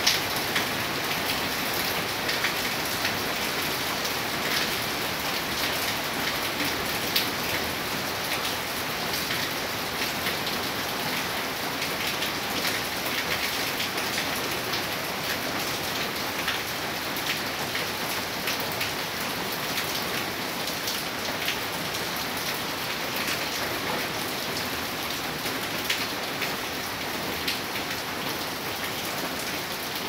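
Steady rain falling on broad leaves: an even hiss with many single drops ticking through it, a little louder in the first half.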